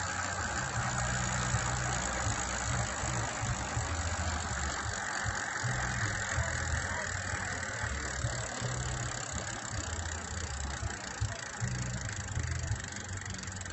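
Bicycle's threaded 9-speed freewheel ratcheting as the wheel spins free: a steady, dense clicking buzz.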